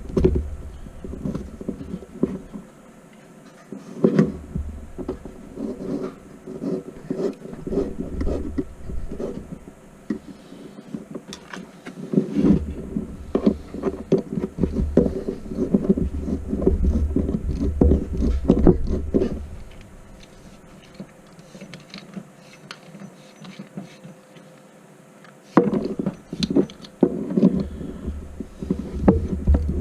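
Hands working a stiff LMR400 coax cable and a PL-259 connector: irregular scraping, clicking and rustling, with two quieter pauses.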